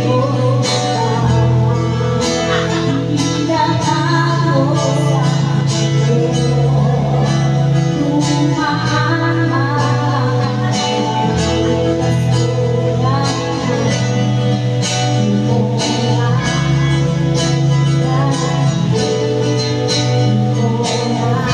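A woman singing into a microphone over amplified backing music with a steady beat and a sustained bass line.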